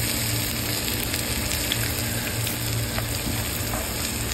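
Onions and tomatoes frying in an open aluminium pressure cooker on a hot plate: a steady sizzle with a low, even hum beneath it.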